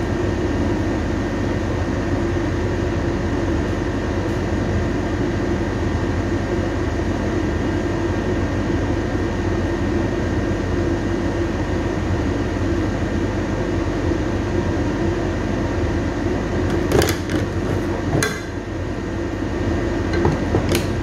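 Steady machine hum and whir, unchanging throughout, with a few light knocks near the end.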